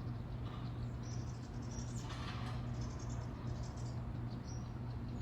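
Outdoor ambience: a steady low hum with scattered faint, short high-pitched chirps and a brief rustle about two seconds in.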